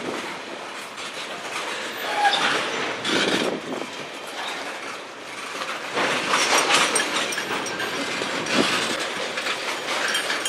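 Freight cars of a CN manifest train rolling past, wheels clicking over the rail joints in an uneven clickety-clack that swells and eases, with a brief wheel squeal about two seconds in.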